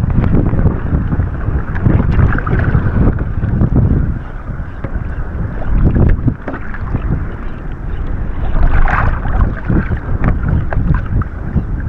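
Strong wind buffeting the microphone: a loud, gusty rumble that swells and eases over several seconds.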